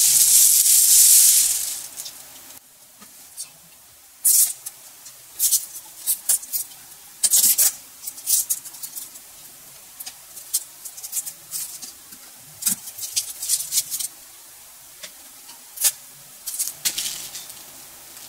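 Plastic packaging bag rustling loudly for about two seconds as it is pulled off, then scattered short crinkles and clicks of packing material and plastic parts being handled.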